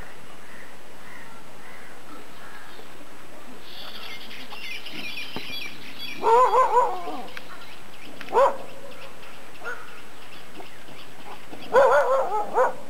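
Loud animal calls with a wavering pitch: a quick run of them about halfway through, a single call a couple of seconds later, and another run near the end. High bird chattering is heard just before the first run, and a steady hiss lies under everything.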